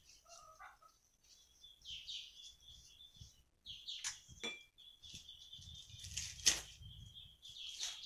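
Small birds chirping repeatedly in the background, over light clinks and knocks of items being tidied away. The loudest knock comes about six and a half seconds in.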